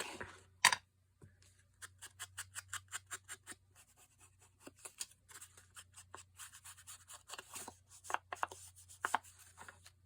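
Paper and craft tools being handled on a desk: one sharp click, then a run of quick light ticks and soft scratching against paper.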